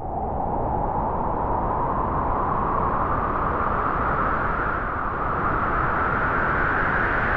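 Howling wind sound effect: a steady rushing noise whose howl slowly rises in pitch.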